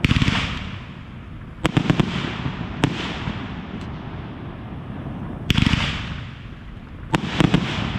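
Fireworks display firing volleys: a bang at the start, a quick run of three sharp cracks near two seconds in, a single crack a second later, another bang about five and a half seconds in and three more quick cracks near the end, each followed by a fading rumble.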